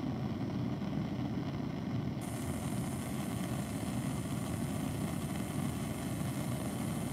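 Bunsen burner running on its hot flame with the air collar open: a steady, low rushing sound.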